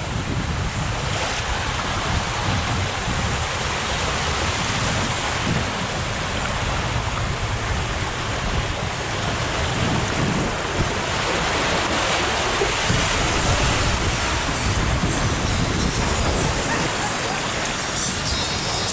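Water rushing under a two-person raft riding down a fiberglass water slide, with wind buffeting the rider-mounted camera's microphone. A steady, loud rush throughout.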